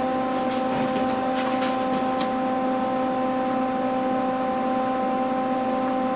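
Lincoln MIG welder working on a steel car body panel: a steady electric buzz with a fixed pitch, with a few short crackles in the first two seconds.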